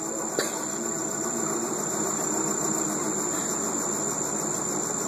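Underwater treadmill running steadily, its motor giving an even hum with a thin high whine over it. A single short click about half a second in.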